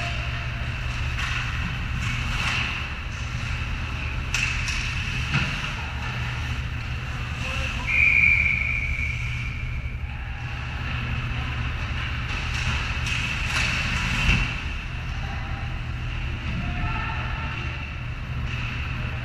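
Ice hockey play close to the goal: skates scraping on the ice and sticks clacking, over a steady low hum. A brief loud high tone sounds about eight seconds in, and faint shouts come near the end.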